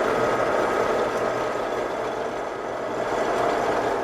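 Combine harvester running steadily during corn harvest, a constant engine and machinery drone with a faint steady whine.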